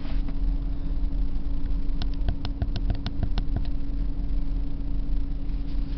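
Steady low mechanical hum with a constant tone, and a quick run of small sharp clicks and taps about two seconds in.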